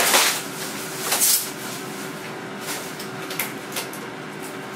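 Packing paper and a plastic bag rustling and crinkling as an appliance is unwrapped by hand: two loud rustles in the first second and a half, then a few lighter crinkles, over a faint steady hum.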